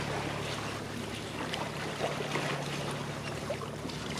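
Water rushing and splashing along the hull of a sailboat under way, with wind noise and a low steady hum underneath.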